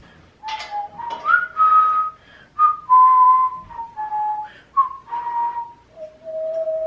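A person whistling a slow tune, a string of held single notes that step up and down, with short breathy gaps between them.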